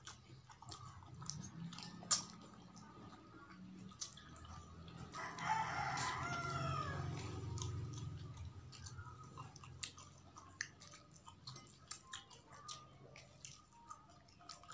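Close-up mouth smacking and chewing clicks from eating fish curry by hand. About five seconds in, a rooster crows once for about two seconds, the loudest sound here.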